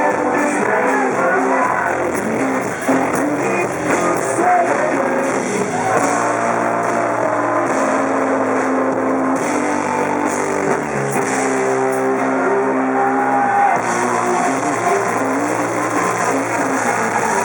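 Live rock band playing, with electric guitar and some singing.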